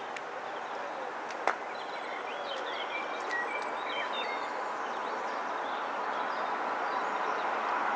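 An approaching train's noise grows steadily louder at a level crossing. Birds chirp in the first half, and there is a single sharp click about one and a half seconds in.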